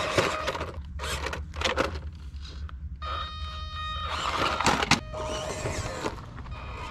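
Small RC rock crawler's electric motor and drivetrain whining in spurts as it climbs, with its tires scraping and knocking against rough concrete and stone.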